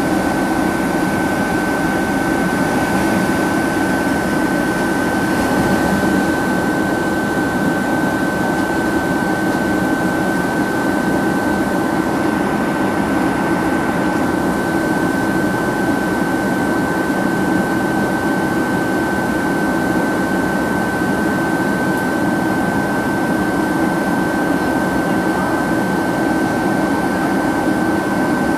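Steady cabin noise of a Boeing 767-300ER in cruise: an even rush of engine and airflow noise with a constant high-pitched whine running through it.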